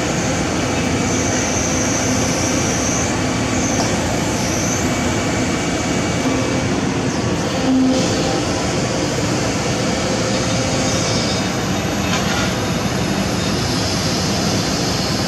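Kobelco SK200 hydraulic excavator working, its diesel engine running steadily under load as the boom and bucket move. A high whine comes and goes during the first few seconds.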